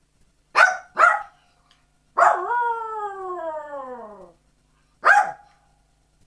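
Small long-haired dog barking twice, then giving a long howl that slides steadily down in pitch for about two seconds, then barking once more.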